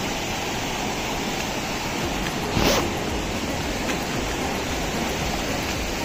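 Shallow stream water rushing steadily across a rocky mountain trail, with a brief louder noise about two and a half seconds in.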